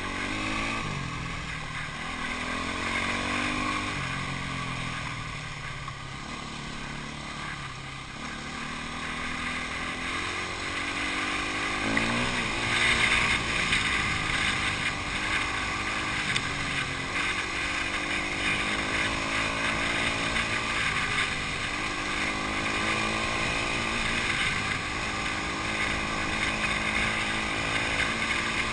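Off-road motorcycle engine being ridden hard, its pitch rising and falling over and over with throttle and gear changes. It grows louder about twelve seconds in.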